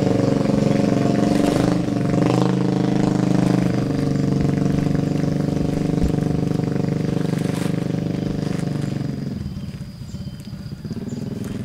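A motor engine running steadily at one pitch, loud and close, then fading away about nine seconds in before a quieter engine sound returns near the end.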